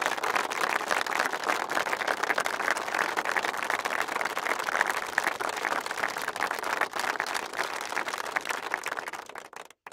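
Audience applauding: a steady patter of many hands clapping that dies away just before the end.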